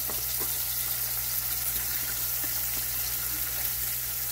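Salmon fillets sizzling steadily in hot olive oil in a stainless steel frying pan, with a few faint scrapes and taps of a metal spatula being worked under the fish to turn it.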